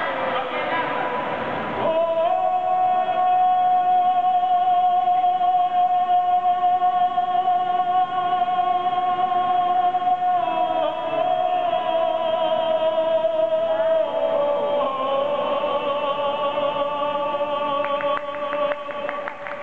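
A gondolier singing a song in an operatic style, holding very long notes: one held for about eight seconds, then a step down to lower notes that are also held until near the end.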